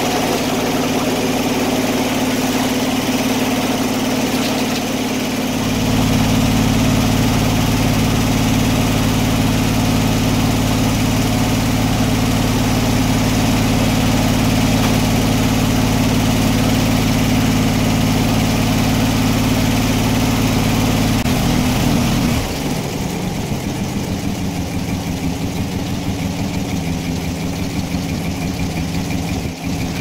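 Engine driving a circular sawmill, running steadily with no cut under way. About six seconds in a deeper hum joins it; around twenty-two seconds in that hum drops away and the engine settles to a lower, quieter running note.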